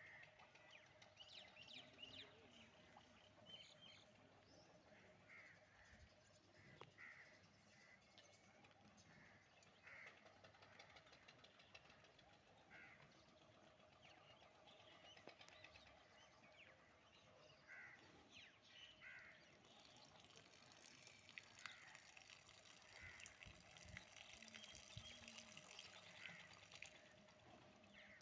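Faint outdoor farmyard ambience with small birds chirping in short, scattered calls over a low steady hum.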